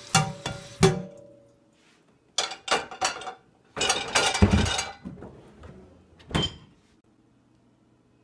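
Dishes clattering as plates, bowls and cups are handled in a kitchen sink and dishwasher rack. There are three sharp clinks in the first second, the last one ringing briefly, then clusters of clatter about two and a half and four seconds in, and a last knock about six seconds in.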